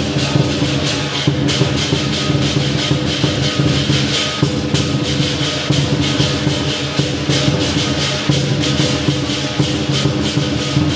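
Lion dance percussion: a Chinese drum, cymbals and gong playing a fast, unbroken beat, with cymbal strikes several times a second over a sustained low ringing.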